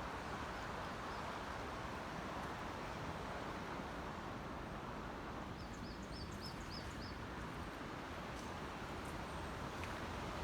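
Steady rush of a river running in flood. A small bird gives a quick run of about five high chirps about six seconds in.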